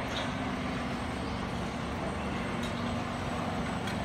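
Fire engine's diesel engine running steadily at a low rumble, with a few faint ticks over it.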